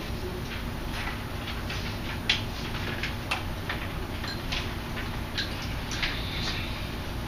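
Classroom working noise: scattered light taps, clicks and rustles of students writing and handling papers at their desks, over a steady low room hum.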